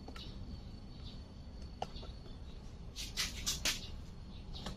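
Small birds chirping faintly, with a quick run of sharp chirps about three seconds in, over a low steady background rumble.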